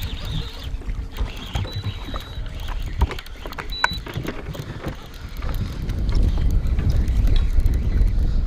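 Wind rumbling on the microphone in an open fishing boat, louder from about six seconds in, with scattered knocks and clicks of gear on the boat and two short high beeps.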